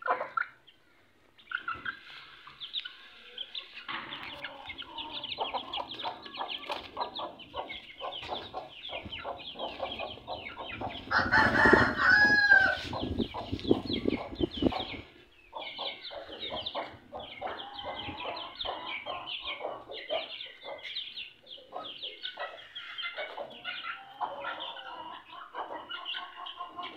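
Young Aseel chickens peeping and clucking in a quick, dense stream of short calls while they peck at grain. A louder stretch of calling comes about eleven seconds in.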